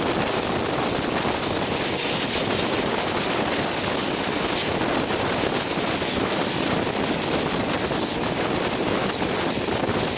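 Steady rush of wind on the microphone held out of the window of a moving steam-hauled passenger train, over the train's running noise.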